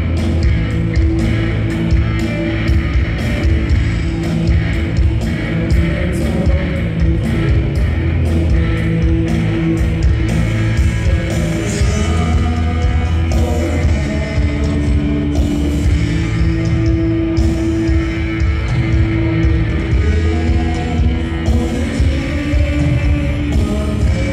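Live rock band playing a Hmong Christian worship song through the hall's PA: electric guitars and drums with a steady beat under a lead singer.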